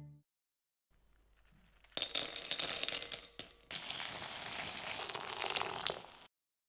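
Just-boiled water poured from a height into a glass bowl over dried soy chunks: a splashing, crackly stream in two spells, a short one starting about two seconds in and a longer steady one that stops abruptly near the end.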